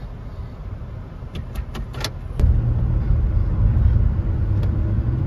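Road and engine rumble of a moving car heard from inside. A few light clicks come about a second and a half in, then the low rumble jumps suddenly louder, as with a window opening or speeding up, and stays loud.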